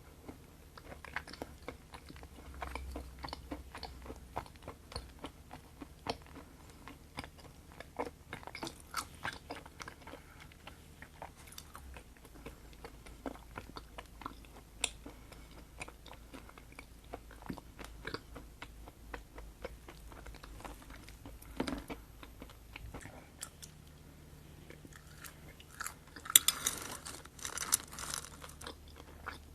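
A person chewing and biting food close to the microphone, with wet smacking and crunchy clicks throughout. Near the end comes a louder, rougher burst lasting about two seconds.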